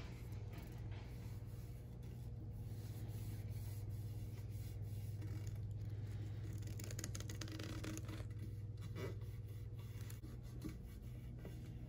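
Fingers rubbing and pressing a vinyl decal onto a chrome air cleaner lid, a soft scraping, with a papery rustle of the backing sheet being peeled away about seven seconds in. A steady low hum runs underneath.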